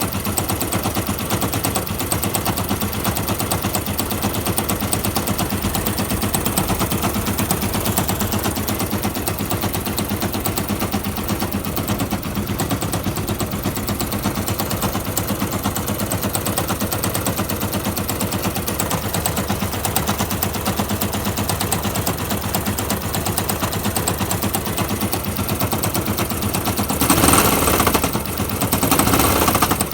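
Yamaha YBR 125 fuel-injected single-cylinder four-stroke engine running with a rapid, continuous knock like a machine gun, louder for a moment near the end. The knock has persisted through a new piston and barrel, and the owner suspects a bad engine but is not sure.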